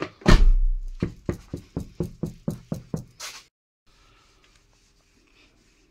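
Sound-deadened Lexus LX470 door shutting with one heavy thud, followed by a run of quick knocks, about four a second and fading, that stop about three seconds in.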